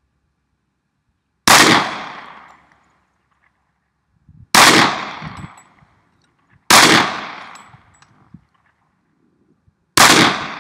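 Four shots from a Glock 30 Gen 4 .45 ACP pistol, fired at uneven intervals about two to three seconds apart. Each sharp report dies away over about a second.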